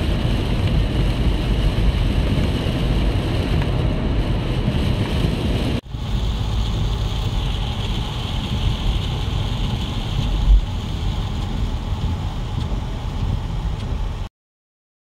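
Steady noise inside a moving car in heavy rain: tyres hissing on the flooded road and rain on the car. There is a brief break about six seconds in, a low thump a little after ten seconds, and the sound cuts off abruptly near the end.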